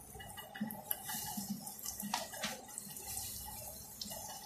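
Chicken balls deep-frying in hot oil in a wok: a steady sizzle with scattered sharp crackles.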